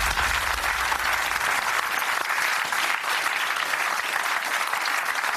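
A studio crowd applauding, with a low rumble underneath that fades out about two seconds in.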